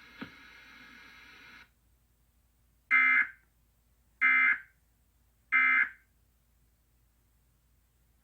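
Emergency Alert System end-of-message signal: three short bursts of buzzy digital data tones about 1.3 seconds apart. The signal marks the close of the alert.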